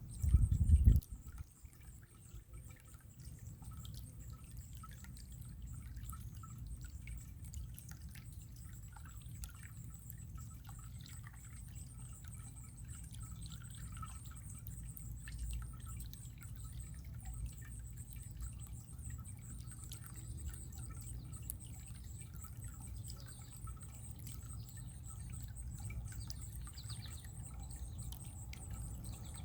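Running water, a steady low rush with many small scattered drips and splashes. A loud low thump sounds in the first second.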